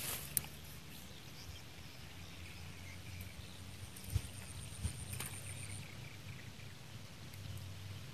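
Quiet open-air ambience: a steady low wind rumble on the microphone, a few soft clicks, and a faint thin high steady tone from about three to six seconds in.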